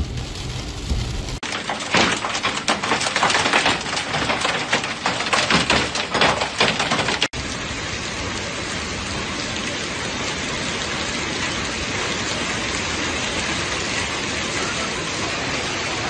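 Hailstorm: for the first several seconds a dense, rapid clatter of hailstones striking hard surfaces, then, after a sudden change, a steady hiss of hail and rain pouring down onto paving.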